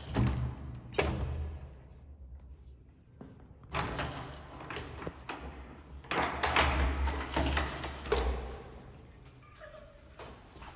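A key being worked in a locked apartment door's lock, the key ring and its small bell jingling, with thunks and rattles from the handle and door in a few separate bouts.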